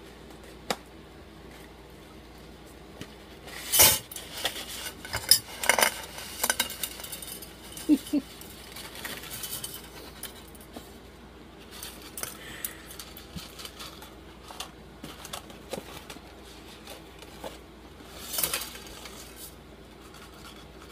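A box of dry angel hair pasta being opened and handled: scattered clicks, knocks and light kitchen clatter, with louder bursts of rustling about four seconds in, around six seconds and near the end.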